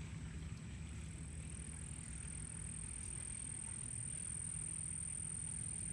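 Steady low rumble of background noise, with a thin, steady high-pitched whine above it and no distinct events.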